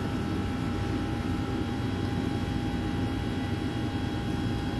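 Steady hum of running bakery machinery: a low drone with a few faint steady tones above it, unchanging throughout.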